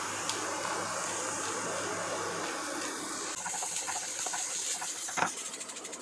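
Chopped onions and capsicum frying in oil in a pan: a steady sizzle that turns brighter and hissier about halfway, with one light knock of a utensil near the end.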